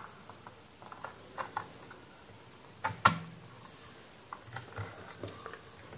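Scattered light clicks and taps of a small plastic gauge stepper motor being handled and set against an instrument-cluster circuit board, with one sharper click about three seconds in.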